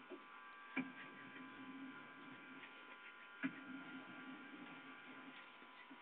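Steady, quiet electrical hum, with two sharp clicks, one about a second in and another about three and a half seconds in.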